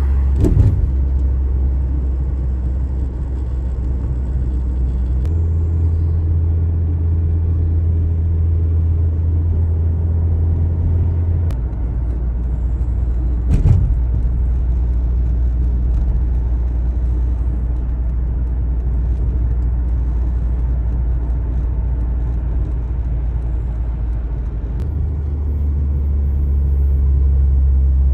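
Steady low rumble inside a car cabin as a strong dust storm buffets the car, with its depth shifting a few times. Two short thumps land, one just after the start and one about halfway through.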